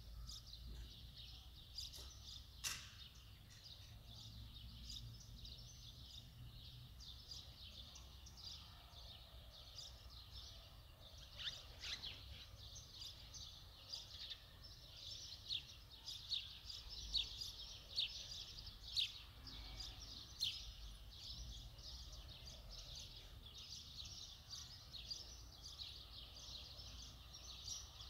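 Birds chirping faintly and continuously, many short high chirps coming thick and fast, over a faint low hum.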